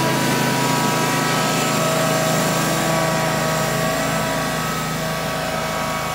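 An engine running steadily at an even speed, with a constant hum, from snow-plowing equipment clearing snow.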